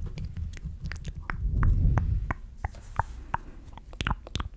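Close-miked ASMR trigger sounds: a string of soft, irregular clicks and taps, a few a second, over a low rumble.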